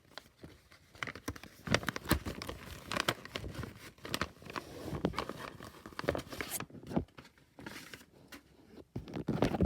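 Crinkling and tearing of a blind-bag packet as it is ripped open and handled by hand: irregular crackles and rustles.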